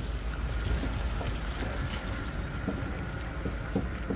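Pickup truck driving past and pulling away towing a trailer, its engine a steady low rumble with tyre noise and small ticks of grit on the wet driveway.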